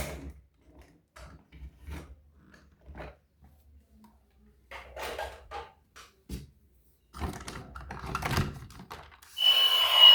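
Scattered light clicks and rubbing from objects being handled, with quiet gaps between them. Loud music starts again near the end.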